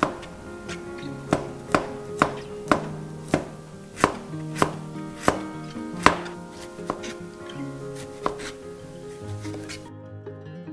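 Kitchen knife slicing garlic and ginger on a cutting board: a run of sharp knocks of the blade on the board, about one to two a second, stopping a little after eight seconds in.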